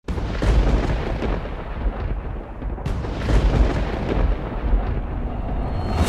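Intro sound effect: a deep, continuous rumble with several heavy booms across it, the sharpest a little before halfway.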